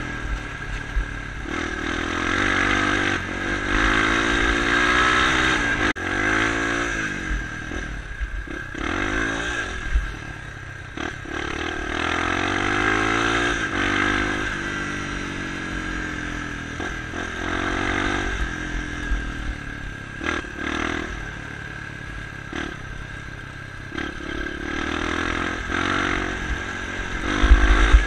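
Trail motorcycle's single-cylinder four-stroke engine heard from the bike while riding, its pitch rising and falling repeatedly as the rider accelerates and shifts, with rattling and scraping from the bike over the rough dirt track. A loud low thump near the end.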